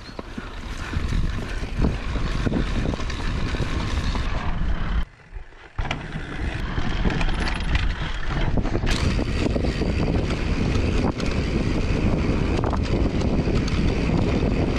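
Wind rumbling over a mountain bike camera's microphone as the bike rolls fast down a dirt trail, with knocks and rattles from the bike over bumps. The sound drops away briefly about five seconds in.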